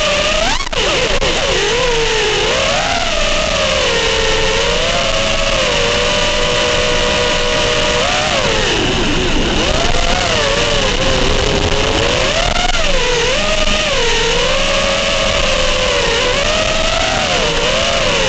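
FPV quadcopter's brushless motors and propellers whining, the pitch swooping up and down with the throttle, with a sharp drop and recovery under a second in and another deep dip about nine seconds in.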